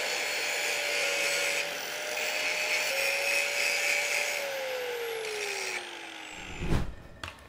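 Handheld angle grinder grinding small patches of a steel test plate clean, the motor running at a steady pitch with the disc scraping on the steel. About four seconds in the motor winds down with a falling pitch and stops, and a short thump follows near the end.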